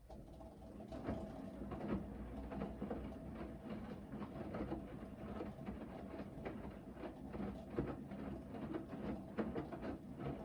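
Hoover VHD 9163 ZI washer-dryer in its main wash: the drum starts turning again right after a pause, with the motor humming steadily and wet laundry and water sloshing and tumbling in the drum with irregular soft knocks.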